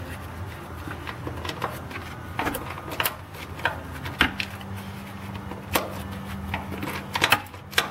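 Irregular metallic clicks and clinks of a wrench and socket working loose the bolts of a tractor's hydraulic filter cover, one bolt after another. A steady low hum joins about halfway in.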